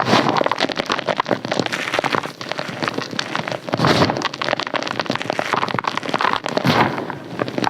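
Dense crisp crunching and crackling, swelling into louder bursts every second or two.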